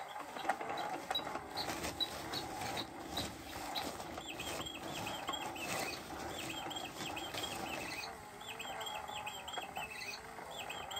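Battery-powered cat chase toy running under its play mat: a steady motor whir with mechanical ticking. From about four seconds in come repeated runs of high electronic chirps.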